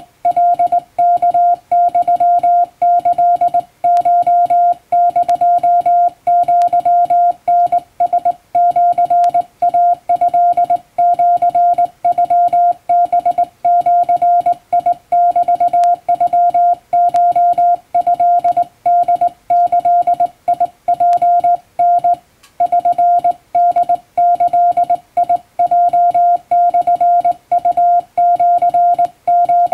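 Japanese Wabun Morse code sent by hand on a straight telegraph key, heard as a single steady sidetone beep keyed on and off in dots and dashes.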